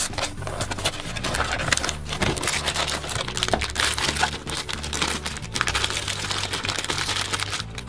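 Blind-box toy packaging being opened by hand: rapid crinkling, rustling and small clicks of the wrapping and box being torn and handled.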